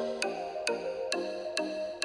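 Electronic background music with a steady beat of about two beats a second over a melody.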